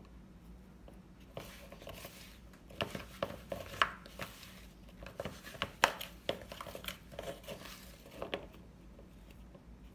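A metal utensil scraping and clicking against a plastic mixing bowl as it stirs a stiff flour-and-Greek-yogurt dough. The strokes come irregularly from about a second and a half in until shortly before the end.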